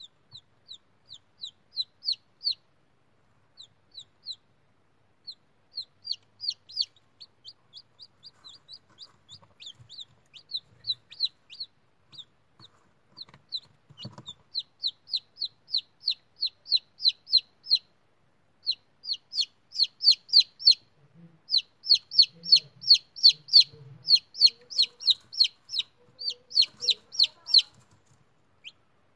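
Newly hatched chicken chick peeping: quick runs of short, high peeps that slide downward in pitch, several a second. The peeps come sparse at first and grow louder and nearly continuous in the second half.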